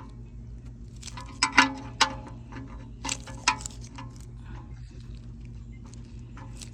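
Sharp metal clicks and knocks from a hand wrench tightening a bolt, in two bunches, over a steady low hum.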